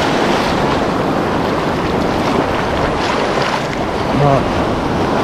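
Surf on the reef and wind on the microphone: a loud, steady rushing noise.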